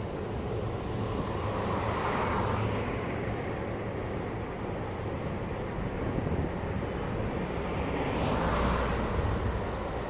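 Freight train of container wagons running across a bridge: a steady low rumble of wheels on rails, with the wheel noise swelling twice, about two seconds in and again near the end.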